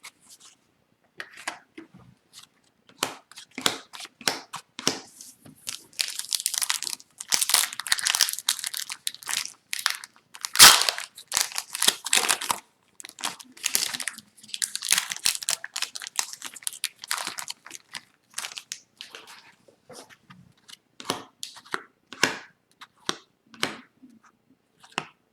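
Plastic-foil wrapper of an Upper Deck hockey card pack crinkling and tearing as it is opened, with cards handled and clicking against each other in irregular short bursts, busiest in the middle.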